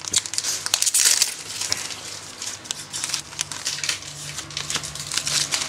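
Plastic-foil trading-card booster pack wrapper torn open and crinkled by hand: a dense run of crackling rustles, loudest in the first second or so, then sparser rustles as the cards are drawn out of the pack.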